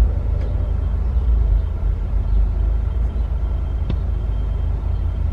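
Car engine idling, a steady low rumble heard from inside the cabin, with a faint click about four seconds in.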